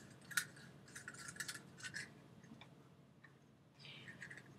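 Faint clicks and scrapes of stiff 11-gauge wire being handled, with the sharpest click about half a second in and a brief rubbing scrape near the end as the wire is laid along a shoe sole.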